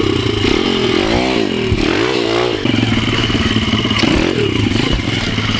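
MRF 140 pit bike's single-cylinder four-stroke engine running under the rider's throttle, blipped up and down several times in quick succession about a second in, with the bike rattling over rough ground.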